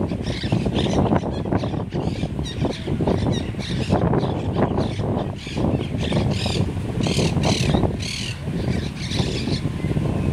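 Monk parakeets calling over and over, the calls coming thickest from about four seconds in until shortly before the end, over a steady low rumble of wind on the microphone.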